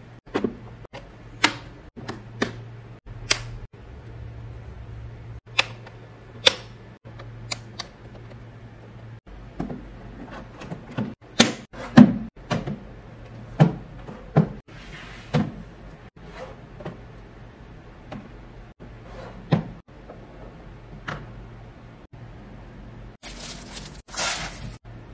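Hard plastic parts of a hooded cat litter box knocking and clicking together as it is assembled: a series of sharp clicks and knocks, heaviest about halfway through. Near the end, a plastic wrapping rustles briefly.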